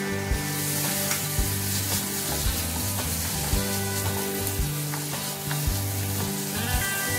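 Sliced bitter melon with tomato, onion and pork sizzling in oil in a frying pan while a wooden spatula stirs it. Background music with a steady beat about once a second plays over it.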